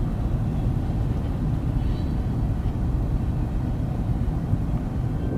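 Steady low outdoor rumble, even and unbroken, without a clear pitched engine note.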